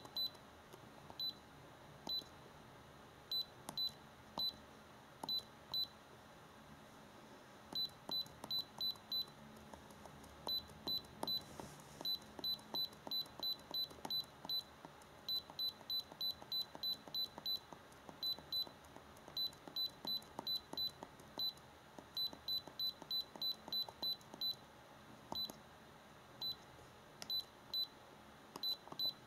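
Handheld iCarsoft i930 diagnostic scanner beeping at each key press as its arrow button scrolls through the menu: short high pips, about three a second in runs, with brief pauses between runs.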